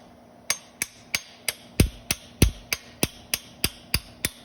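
Hammer tapping the lobes of a 2008 Audi A3 2.0 CCTA engine's camshaft, about three sharp metal-on-metal strikes a second, with two heavier blows near the middle. The strikes knock the lobes around on the shaft: the lobes have come loose and turned, which is what bent the valves.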